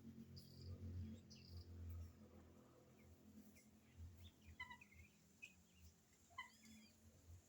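Faint, scattered bird chirps and short calls, with a louder cluster of quick chirps about halfway through and again near the end, over a low quiet rumble.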